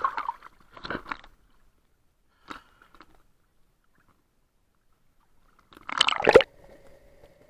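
Choppy sea water splashing and sloshing over a camera bobbing at the surface, in short bursts with quiet gaps between, then a louder splash about six seconds in as it dips under. A faint steady hum follows.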